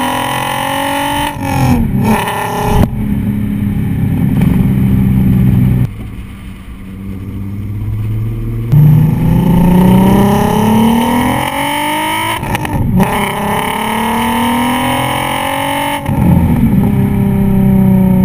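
Exhaust of a 12-valve VR6 engine in a Mk4 VW Golf, through a 2.5-inch exhaust with no resonator and an OBX header, heard at the tailpipes while driving. The revs climb and drop back several times, the engine goes quieter for a few seconds about six seconds in, then comes back loud near nine seconds with the revs rising again.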